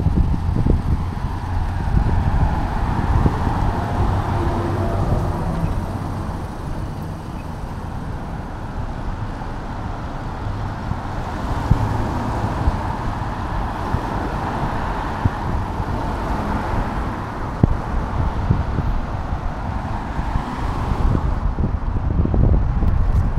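Cars passing on a rain-wet street, their tyre noise swelling and fading twice, over a constant low rumble of wind buffeting the microphone.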